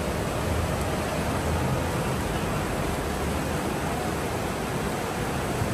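Rain falling steadily, a continuous even hiss with a low rumble underneath.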